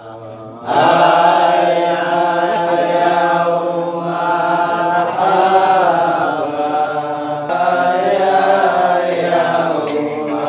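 Men's voices chanting together in long, drawn-out phrases, a devotional chant sung in unison. It starts about a second in and dips briefly between phrases twice.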